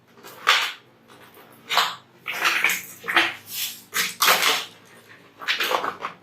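Handling noise as a computer power supply is set and slid into a PC case: a series of irregular short scraping and rubbing sounds of metal parts against each other.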